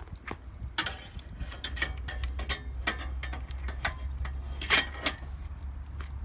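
Wood fire crackling in a steel fire pit: irregular sharp cracks and pops, one louder pop near the end, over a low steady rumble.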